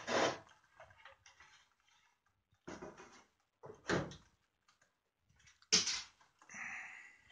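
A wooden model-railway baseboard section being turned over by hand: a few short knocks and scrapes, the sharpest about six seconds in, followed by a softer, longer rubbing sound.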